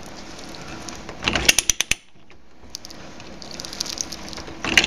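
Ratcheting pipe threader with a 1/2-inch NPT die clicking as its handle is worked while the die cuts the last threads on the pipe. There are two quick runs of sharp ratchet clicks, about a second in and again near the end, with fainter ticks between.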